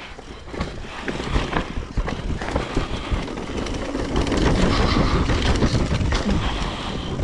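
Downhill mountain bike clattering and rattling over rough trail, with a steady low rumble from the tyres. It gets louder about four seconds in.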